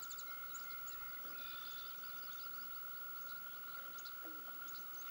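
Marsh ambience at sunrise or sunset: many small birds chirping, over a steady high drone, with a few short low calls.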